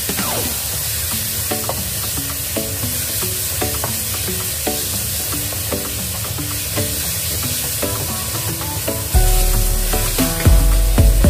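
Sliced meat sizzling and frying in a stainless-steel wok, stirred and turned with a wooden spatula. Background music plays underneath, and its low end comes in louder about nine seconds in.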